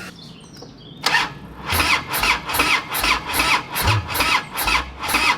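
Harley-Davidson Dyna Street Bob's V-twin being cranked by its electric starter, starting about a second in and turning over in even pulses, about three a second, without catching. The battery had gone flat and has been on charge for about an hour.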